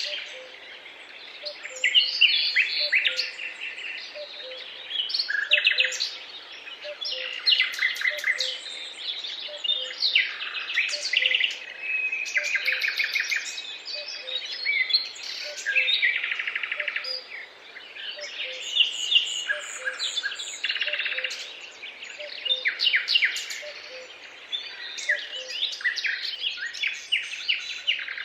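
Several songbirds singing in overlapping chirps and rapid trills, with a faint low note repeating at an even pace, a bit more than once a second, underneath.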